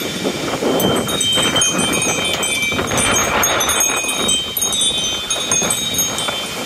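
Strong wind gusting, with metal wind chimes ringing in many short, high tones as the gusts shake them.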